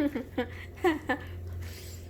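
A woman's voice making a few brief murmured sounds, short gliding syllables in the first second or so, over a steady low hum.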